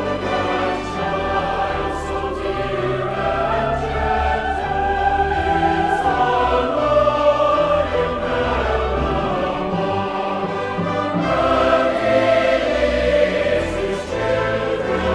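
Choir singing a sustained, slow-moving passage with orchestral accompaniment.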